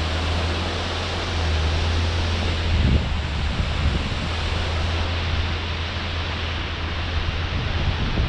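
Steady rushing wind and road noise of a moving vehicle, a low steady rumble under a loud even hiss.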